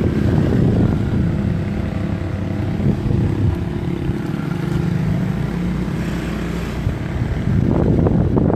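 Motor scooter engine running steadily at riding speed, with wind buffeting the microphone, heaviest near the end.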